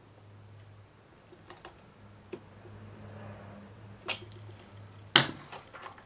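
Light clicks and taps of hand tools on a leaf blower's plastic handle and throttle-cable fitting, with a sharper click about four seconds in and a louder one about five seconds in, over a faint low hum.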